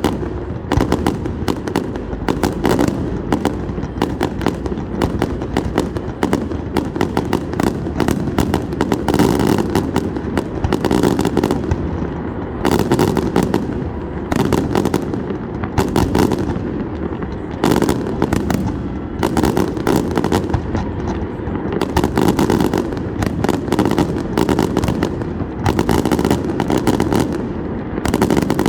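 Fireworks going off in rapid succession: dense crackling and sharp pops that come in clusters every second or two, over a constant low background of further distant bangs.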